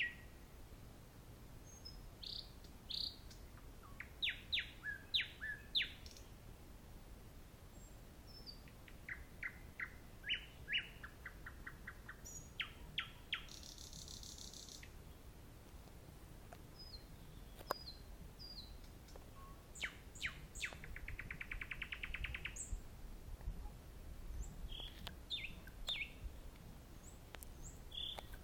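Nightingale singing at night: separate phrases of clear whistles, sharp notes and fast rattling trills, with short pauses between phrases.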